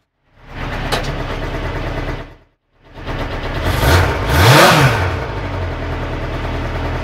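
Suzuki GSX-R 400cc inline-four motorcycle engine in a kart running at idle, revved once about four seconds in, its pitch rising and falling back. The sound drops out completely twice for a moment.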